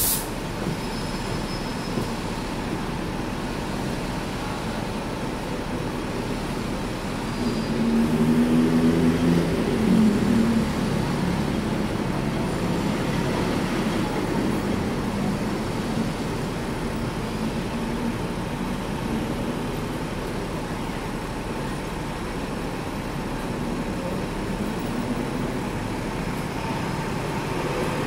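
Street traffic and tram noise heard from the upper deck of a double-decker electric tram: a steady mix of engine and road noise, with a sharp click right at the start and a low engine hum that swells louder for a few seconds about a third of the way in.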